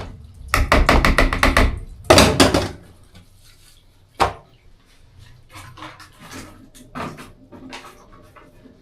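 Kitchen utensils and containers knocking and scraping: two quick runs of rapid knocks in the first three seconds, a single sharp knock about four seconds in, then light scattered clatter.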